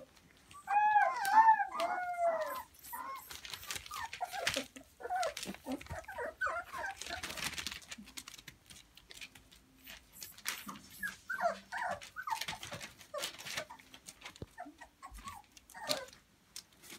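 Young puppies whining and whimpering: a run of arched, rising-and-falling cries in the first couple of seconds, then short squeaky yips and whimpers while they scuffle and play-bite. Crinkling plastic sheeting rustles under them throughout.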